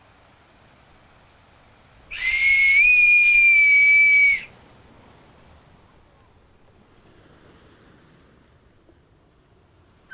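A whistle sounding once, about two seconds in: a single high, steady tone a little over two seconds long, stepping up slightly in pitch just after it starts, then cutting off. Faint hiss before and after.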